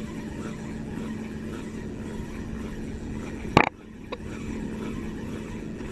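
Small engine of a motorized outrigger banca running steadily with an even hum. A single sharp knock sounds about three and a half seconds in.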